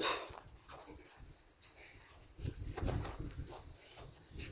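Steady high-pitched chirring of insects, with a low rumble of wind on the microphone.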